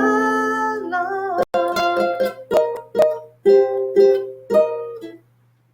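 A last held sung note over ukulele. It gives way about a second and a half in to a run of strummed ukulele chords, about two a second, that close the song and die away about five seconds in.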